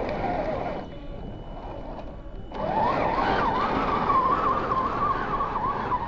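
Electric motor and gear train of a scale RC rock crawler whining as it climbs a sandy slope, the pitch wavering with the throttle. It stops for a second and a half about a second in, then comes back rising in pitch and runs on higher.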